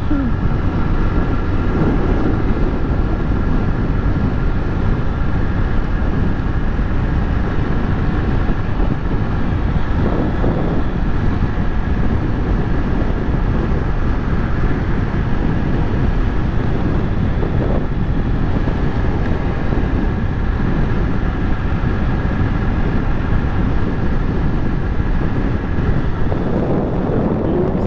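Honda CG Titan 125 motorcycle's single-cylinder four-stroke engine running steadily at cruising speed on asphalt, mixed with wind over the microphone.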